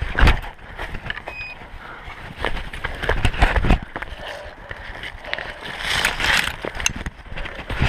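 Crinkling and rustling of an orienteering map in a clear plastic bag being handled and refolded, loudest about six seconds in, with scattered knocks and thumps from footsteps and body-worn camera movement through forest undergrowth.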